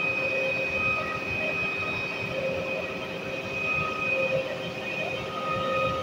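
Truck-mounted concrete boom pump running: steady machine noise with several high, held whines, some fading in and out.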